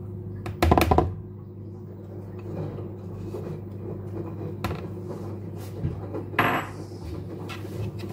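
Spatula stirring and scraping thick cookie dough in a plastic mixing bowl, with a few sharp knocks of the spatula against the bowl, the loudest cluster about a second in. A steady low hum runs underneath.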